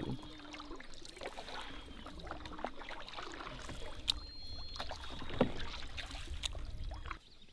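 A canoe being paddled: paddle strokes through the water, with scattered light knocks against the hull, one sharper knock about five seconds in, over a low steady rumble.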